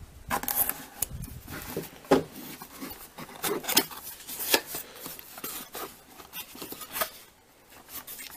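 Hands opening a cardboard lens box: irregular scrapes, rubs and clicks of cardboard flaps and packaging being pulled open.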